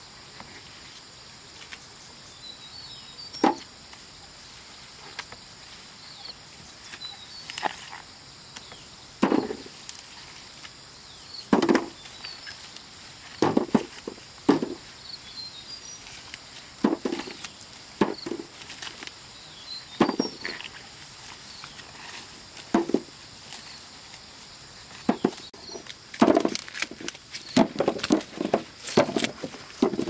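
Irregular sharp knocks and snaps, roughly one every two seconds, coming quickly one after another near the end, like stalks or wood being chopped or snapped by hand. A steady high insect buzz and faint bird chirps run underneath.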